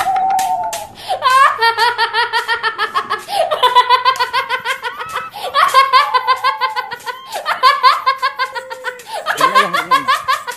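A shrill, high-pitched cackling laugh, the kuntilanak ghost's 'hihihi', in about six long bouts of rapid repeated pulses with short breaks between them.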